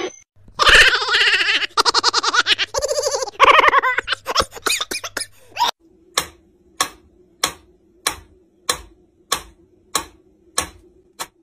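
A loud, rapidly fluttering pitched sound cuts off about halfway through. Then a mechanical pendulum metronome ticks steadily, about three ticks every two seconds.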